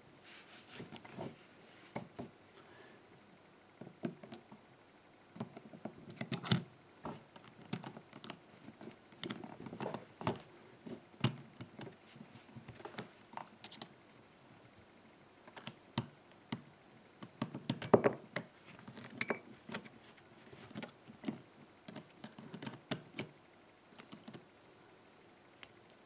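Small metal clicks and clinks of a Stanley barrel padlock's steel body, plug and key being handled and pushed together during reassembly. The clicks come irregularly, and the loudest, with a brief metallic ring, come about two thirds of the way through.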